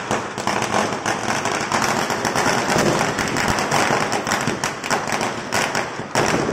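Diwali firecrackers crackling and popping densely and without a break, many sharp cracks a second.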